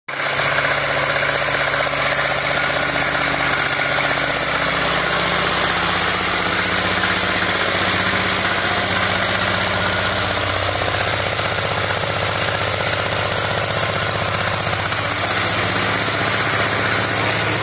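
Small petrol engine running steadily, driving a milking machine's vacuum pump.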